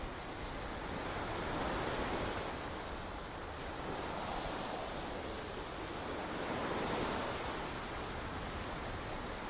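Ocean surf washing onto a beach: a steady noise of waves that swells up about every two to three seconds.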